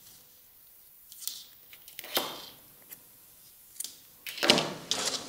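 Handling noises from working with the crocheted yarn bag and tools: scattered rustles and sharp clicks, quiet for the first second and loudest in a cluster near the end.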